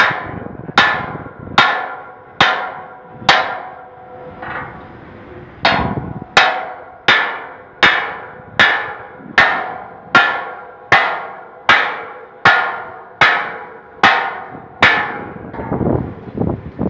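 Hammer striking a steel truss in a steady series of blows, about one every 0.8 seconds, each leaving a short metallic ring, with a brief pause about four seconds in.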